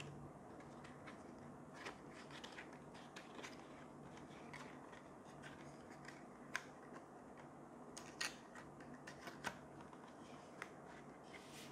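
Long cardboard box of a T5 LED tube light handled and turned over in the hands: faint scattered rubs and clicks of fingers on cardboard, with a few sharper taps in the second half, over a low steady hum.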